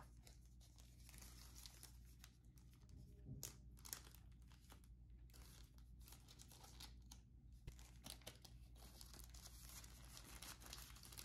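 Faint crinkling and rustling of packaging being handled and torn open as the stabilizer's small tripod is unwrapped, in irregular crackles with a few louder ones about three to four seconds in.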